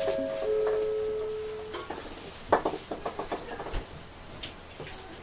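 Metal crash sound effect: a few ringing tones die away over the first second or so, then a scatter of clinks and rattles like dishes or pans settling.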